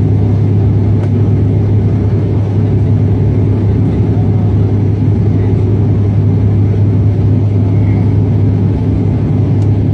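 Cabin noise of a high-wing turboprop airliner in flight: a steady engine and propeller drone with a deep, even hum.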